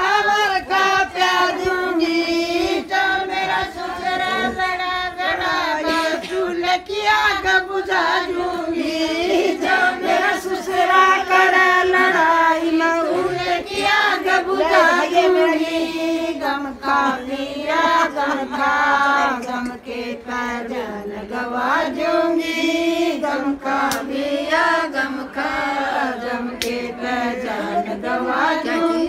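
A group of women singing a folk song together in chorus, several voices on one sustained, wavering melody.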